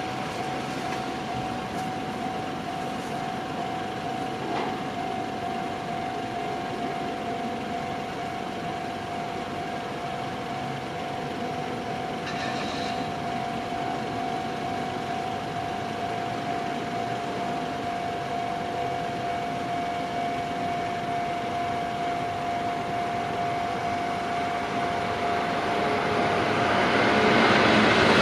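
Japanese railway level-crossing alarm ringing with a steady electronic bell tone. In the last couple of seconds an approaching train's running noise rises over it.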